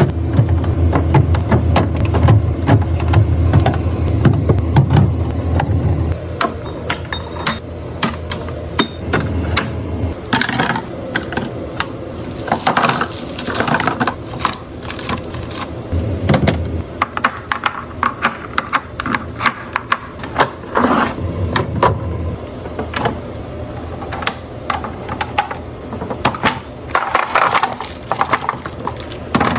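Food containers and packaging being handled and set down: a steady string of clicks, taps and light clatters. A low rumble runs under them for about the first six seconds, then stops.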